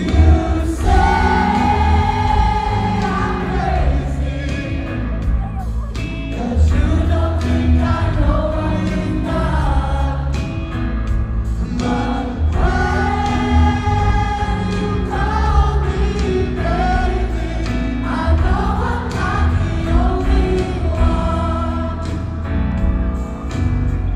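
Live concert performance of a slow pop-soul ballad: a male lead singer holding long notes over a band with a heavy, steady bass, recorded from the arena stands.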